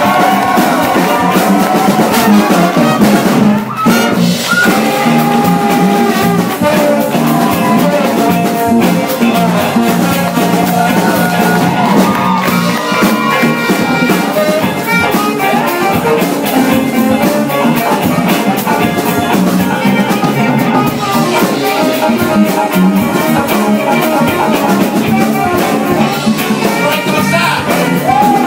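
Jazz big band playing, horns over a drum kit, with a brief dip in the sound about four seconds in.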